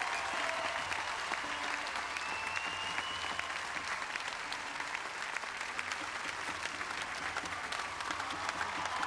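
A large crowd applauding, with dense, steady clapping.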